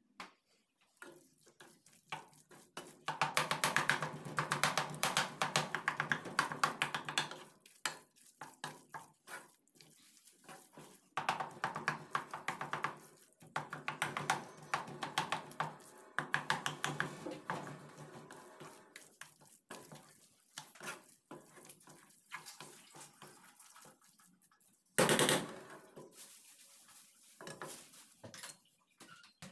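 A wooden spatula stirring and scraping thick grated-carrot halwa mixed with crumbled mawa around a stainless steel pan, in runs of rapid scraping strokes with pauses between. There is a brief loud knock near the end.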